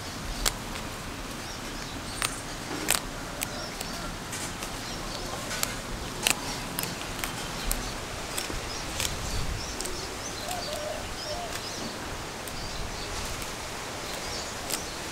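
Water spinach stems being snapped apart by hand, giving a scattered series of short, crisp snaps over a steady background hiss.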